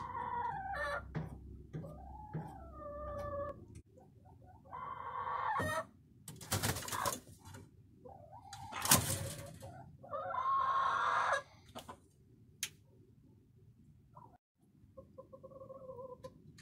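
Hens clucking and calling, several separate calls, with two loud flurries of wing flaps about six and nine seconds in as birds fly up onto the roosting bar.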